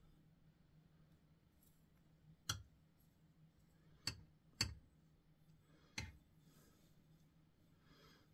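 Near silence: faint room tone with a low steady hum, broken by four short, sharp taps or clicks spread over several seconds, two of them close together.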